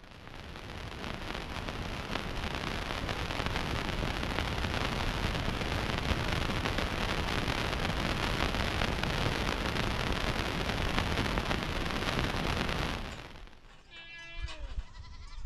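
A loud, steady rushing noise with a deep rumble, which fades away about thirteen seconds in. Sheep or goats bleat near the end.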